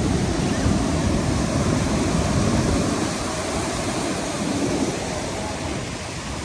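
Rough sea surf breaking and washing in, a steady rush with a low rumble, easing slightly about halfway through.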